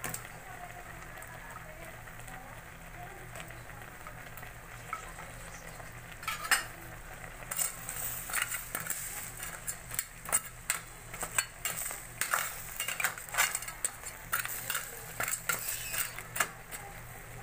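A spatula stirring crabs and squash chunks in a stainless steel pot: from about six seconds in, many sharp scraping clicks and knocks against the pot and the crab shells, over a steady low hiss of the pot cooking.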